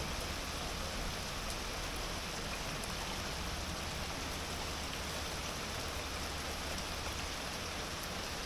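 Heavy rain falling steadily on a sailing boat, an even hiss with faint scattered drop ticks.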